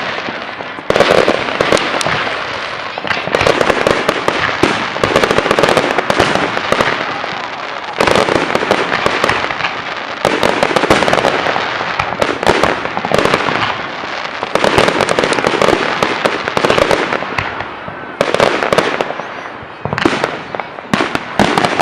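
Fireworks going off in rapid succession: dense crackling and popping, with a new loud volley every few seconds.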